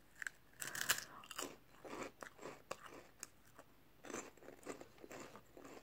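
A crisp being bitten and chewed close to the microphone: a series of sharp, irregular crunches, loudest about a second in, thinning out as it is chewed down.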